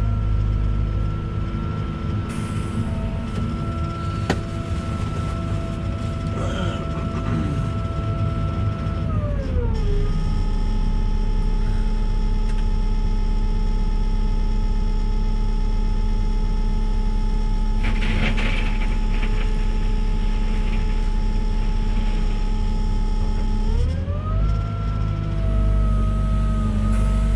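Volvo EWR150E wheeled excavator's diesel engine running at a steady speed. About ten seconds in it drops smoothly to a lower steady pitch, and it rises again near the end. There is a sharp click about four seconds in and a brief clatter later on.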